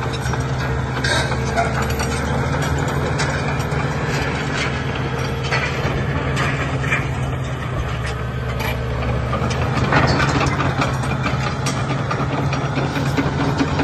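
Caterpillar D6R crawler dozer's diesel engine running with a steady low note, while its steel tracks clank and rattle over broken rock in many irregular sharp knocks.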